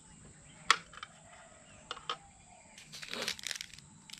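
Instant coffee being made: a sharp clink of a cup about a second in, a few lighter clicks, then the rustle of a coffee sachet being handled near the end.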